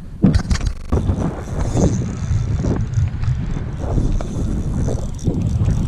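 Strong wind buffeting the microphone: a loud, irregular low rumble that starts abruptly about a quarter of a second in and swells and crackles in gusts.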